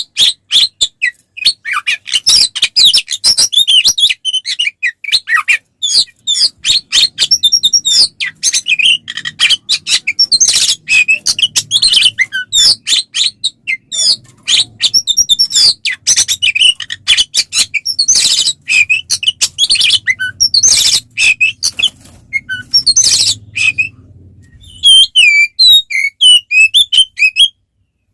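Oriental magpie-robin (kacer) singing a loud, continuous fighting song: rapid varied whistled phrases mixed with harsh chattering notes, with a brief pause near the end.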